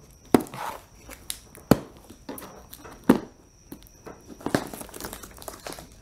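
A Flambeau hard plastic rifle case being unsealed and opened: three sharp plastic clacks about a second and a half apart, then rustling and crinkling of tape and plastic wrap in the second half.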